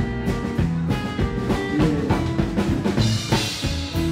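Live rockabilly band playing an instrumental passage between sung lines: electric guitar, upright double bass and a drum kit keeping a steady beat.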